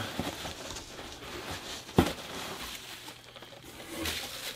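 Hands rummaging in a mystery box, faint rustling and handling of packaging as the next item is pulled out, with one sharp knock about two seconds in.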